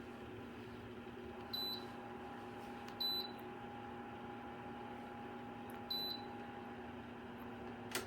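Senville 1500W ceramic space heater running with a steady fan hum, its control panel giving three short high beeps spaced a second or more apart, and a brief click near the end.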